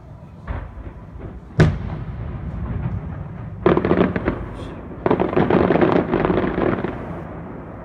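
Fireworks display: one sharp bang about a second and a half in, then two long runs of dense, rapid crackling pops, fading near the end.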